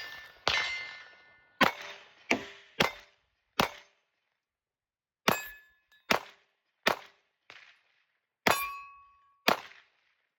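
9mm Glock 17 Gen 6 pistol fired about ten times at a steady, unhurried pace at steel targets, with hits setting the steel plates ringing with a clear metallic ding after the shots.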